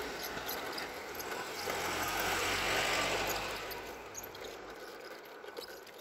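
Road traffic: a motor vehicle driving past on the road beside the pavement, its engine and tyre noise swelling about two to three seconds in and then fading away.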